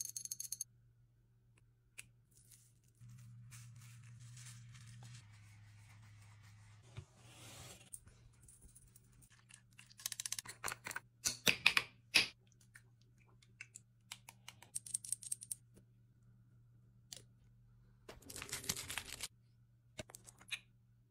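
Hands with long acrylic nails tapping, clicking and scraping on plastic skincare bottles and jars as they are picked up and opened: scattered quiet clicks, a dense run of them about ten to twelve seconds in, and a longer scraping rustle about eighteen seconds in.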